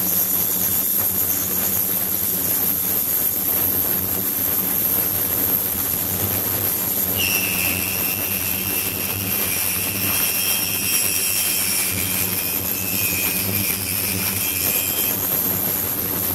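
Water pouring from a flow-through ultrasonic shower nozzle into a tank: a steady rush with a low hum and a constant high whine. About seven seconds in, a higher pair of tones joins for roughly eight seconds.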